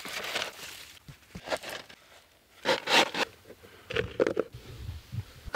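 Birch bark being peeled and ripped from a log, a series of short tearing and scraping strokes, the loudest about three seconds in.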